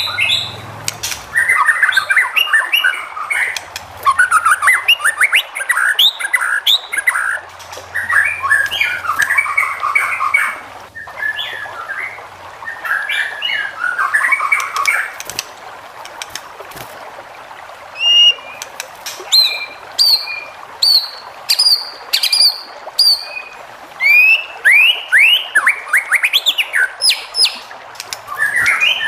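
White-rumped shama singing: dense runs of rapid twittering phrases through the first half, then, after a short pause, separate clear whistled notes and quick sweeping slurs.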